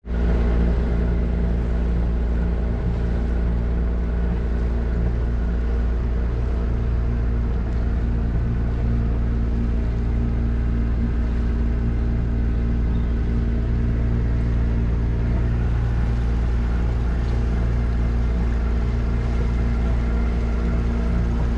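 A sailboat's engine running at steady revs while motoring along, an even, unchanging drone.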